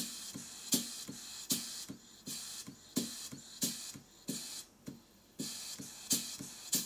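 Stuart beam model steam engine running on compressed air, knocking with each stroke amid hissing puffs of exhaust air, about one and a half a second, with lighter clicks from the linkage between. The slide valve timing is retarded, opening after top dead centre, which is one of the reasons for the bad knocking.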